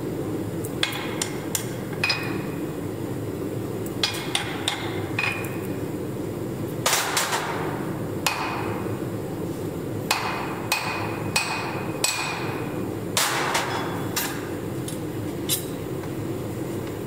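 Hand hammer striking a red-hot steel axe head on an anvil: irregular single blows and quick runs of two or three, several ringing briefly, the heaviest about seven and thirteen seconds in. A steady forge hum runs underneath.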